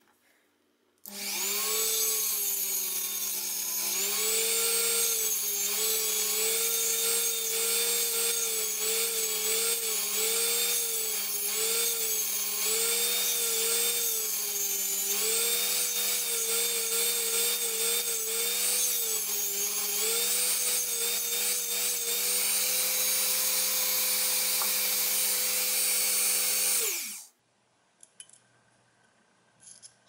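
Rotary tool spinning a grinding stone, switched on about a second in. Its whine dips and recovers again and again as a steel hairclip is pressed against the stone to grind the pick's tip. Near the end it is switched off and the pitch winds down.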